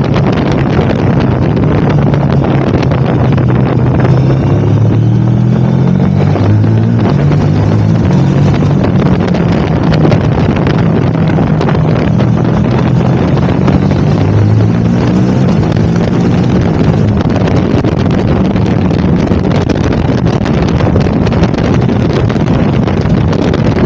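KTM 1290 Super Adventure's V-twin engine running on the move, its pitch climbing and dropping several times with the throttle, under a steady rush of wind on the microphone.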